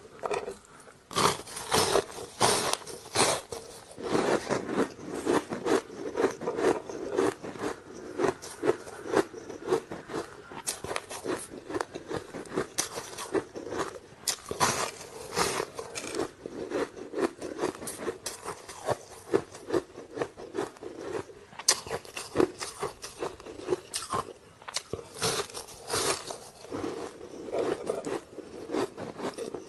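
Short sticks of ice being bitten and chewed: a dense, continuous run of crisp crunches and cracks, with several louder bites among them.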